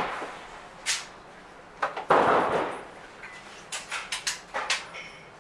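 A gunshot about two seconds in, ringing off the walls of the covered range, after a short sharp crack about a second in. A run of light clicks and knocks follows near the end.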